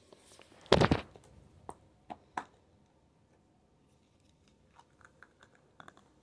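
Handling noise from plastic slime tubs: a loud rub and knock about a second in, a few sharp taps after it, then a run of small faint clicks near the end.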